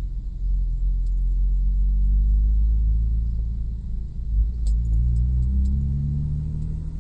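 Nissan Maxima's swapped VQ35 V6 running with a steady low exhaust rumble, its pitch shifting slightly about halfway through. The owner reports a slight misfire at idle.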